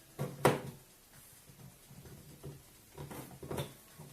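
Clicks and knocks of hands handling the homemade test box, likely while checking its USB socket: one sharp knock about half a second in and a few softer taps around three seconds in.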